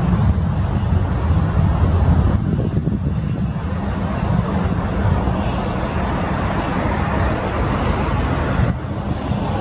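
Airbus A321 jet engines at takeoff thrust as the airliner lifts off and climbs away: a loud, steady rumbling roar of dense engine noise, strongest in the low range. The level drops suddenly near the end.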